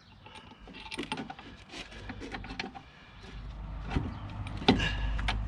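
Metal bolt being fed into the lower mount of a car's rear shock absorber: a string of small metallic clicks, taps and scrapes, with a sharper knock about four and a half seconds in and a low rumble under the second half.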